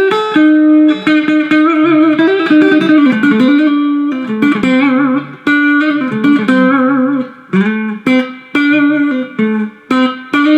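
Electric guitar playing a fast country chicken-pickin' lick, quick single notes in several short phrases with brief breaks, a few notes held with vibrato, moving between minor and major notes.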